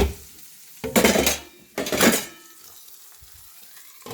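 Metal pan lids clattering: three loud clanks about a second apart, the last leaving a short metallic ring, over the low sizzle of an omelet frying in the pan.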